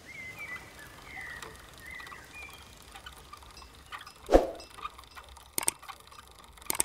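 Birds chirping in short calls for the first couple of seconds, then a single thump about four seconds in, and sharp mouse clicks twice near the end as a subscribe button is clicked on screen.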